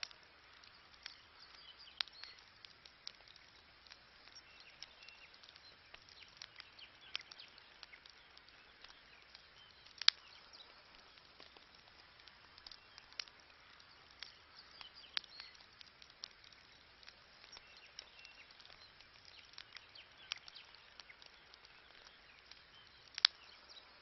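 Wood campfire crackling: scattered sharp snaps and pops from burning sticks, with two much louder pops, one about ten seconds in and one near the end.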